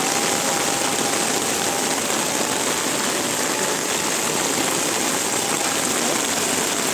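Torrential monsoon rain pouring steadily onto a waterlogged street and rooftops: a dense, even hiss.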